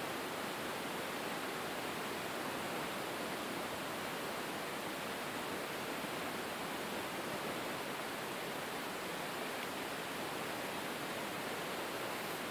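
Steady, even rushing of water splashing into a concrete fish pond.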